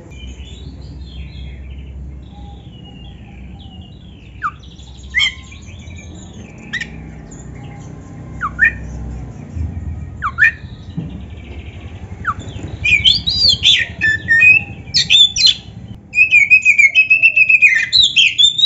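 Oriental magpie-robin singing: sharp, separate whistled notes every second or two, then from about two-thirds of the way in a loud, fast, unbroken run of varied phrases.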